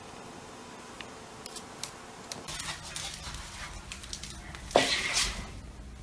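Corgi puppy tugging at a fabric chew toy on a wooden floor: scuffling and rustling with scattered clicks, and a louder noisy burst about five seconds in. Before that, faint room tone.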